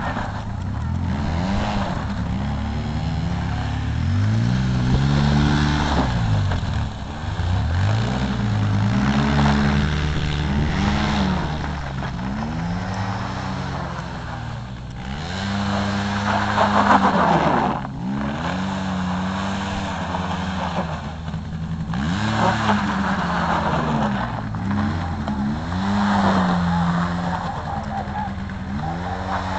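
Small engine of a child's youth ATV (quad bike) revving up and easing off again and again, its pitch climbing then dropping every two or three seconds.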